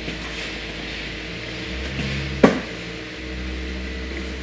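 Steady low hum of workshop machinery, with one sharp knock about two and a half seconds in.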